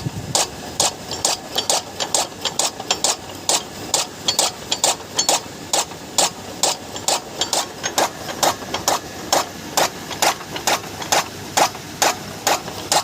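Electric chaff cutter (cattle-feed grass cutting machine) running freely after a bearing replacement, its blades turning with a sharp, regular knock about two to three times a second over a steady motor hum.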